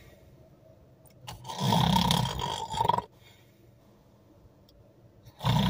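A man making two long, fake snores while pretending to doze off. The first lasts about a second and a half; the second starts near the end.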